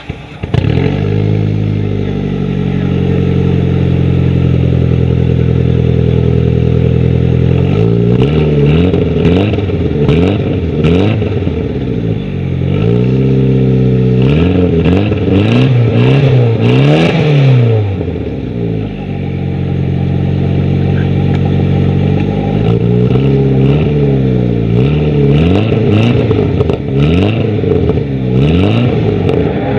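Mitsubishi Galant VR4's 4G63 turbocharged inline-four engine idling steadily, then revved again and again, its pitch rising and falling in repeated blips.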